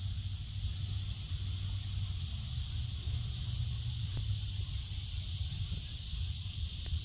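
Steady high hiss of a summer insect chorus across an open field, over a low steady rumble.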